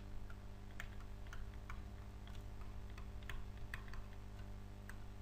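Faint, irregular light clicks and taps, about two a second and unevenly spaced, over a steady low electrical hum.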